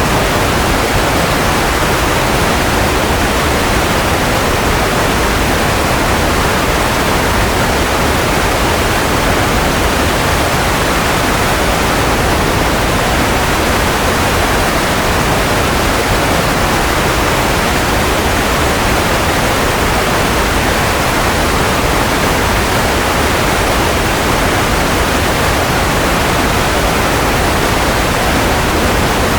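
Steady, unchanging white noise (a smooth, pink-leaning hiss) played continuously as a baby-sleep sound.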